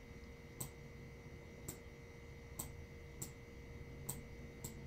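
About six faint, irregularly spaced clicks from a stylus tapping a tablet screen while handwriting a note, over a faint steady hum.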